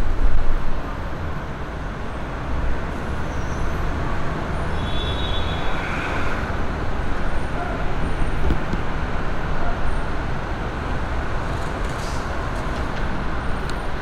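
Steady road traffic noise with a deep low rumble, and a brief faint high tone about five seconds in.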